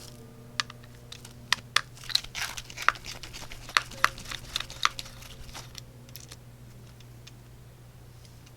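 Light clicks and taps of small repair tools handled on a smartphone's frame, a dozen or so over the first five seconds, then fewer. A steady low hum runs underneath.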